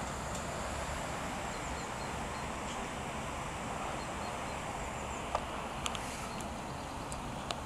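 Steady outdoor wind noise on the microphone with faint birds chirping in the background, and a few sharp clicks in the last couple of seconds.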